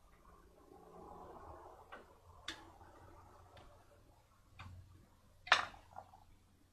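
Flat screwdriver working a brake pad's steel retaining spring clip on a disc-brake caliper, bending the clip back in: a faint scrape about a second in, then a few separate sharp metallic clicks, the loudest near the end.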